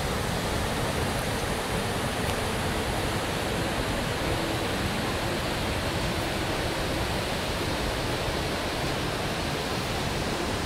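Large waterfall: a steady, unbroken rush of heavy falling water.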